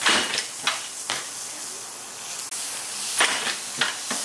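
A steady hiss with a handful of short, sharp knocks or clicks: a few near the start and a few more near the end.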